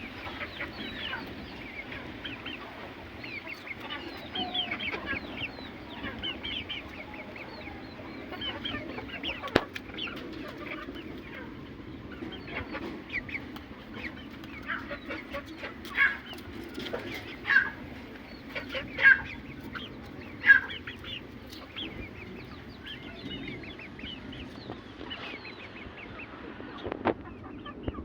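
Aseel chickens clucking continuously, many short calls overlapping, with about four louder calls in the middle.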